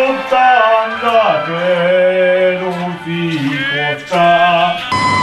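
A man singing long, held notes that slide slowly between pitches. Just before the end a siren cuts in with a falling wail.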